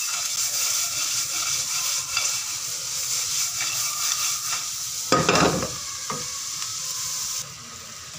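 Vegetables and nuts sizzling in butter in a wok while being stirred and tossed with a wooden spatula, with one louder knock about five seconds in. The sizzle drops away near the end.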